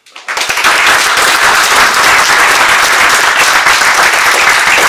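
A roomful of people applauding, breaking out suddenly and carrying on steadily as dense clapping.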